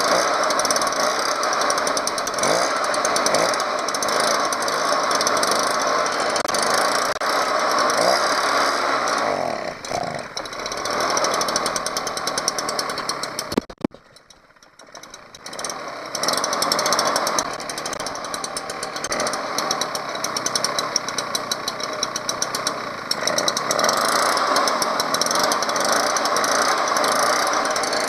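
Stihl BR 400 backpack leaf blower's two-stroke engine running steadily while its carburetor is adjusted to make it idle. The sound dips briefly about a third of the way in. Just before halfway it cuts off abruptly for about two seconds, then the engine runs again.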